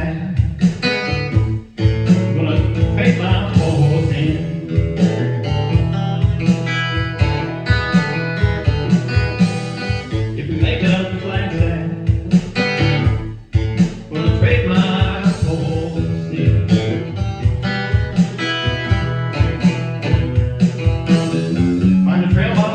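Original acoustic blues song played on guitar, with a steady plucked bass pulse and a singing voice.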